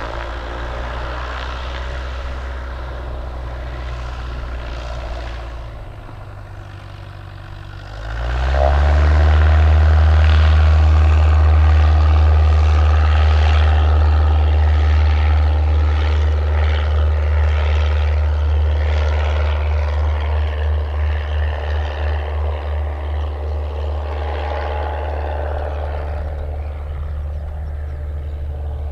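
Cessna 172P Skyhawk II's four-cylinder Lycoming engine and propeller running at low power, easing off briefly, then opening up to full throttle about eight seconds in for the takeoff roll. The steady full-power drone later pulses and slowly fades as the plane lifts off and climbs away.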